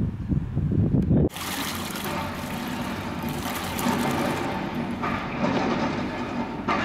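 Wind rumbling on the microphone for about a second, then a steady hissing, splashing pour of white line-marking paint from a plastic bucket into a larger paint tub.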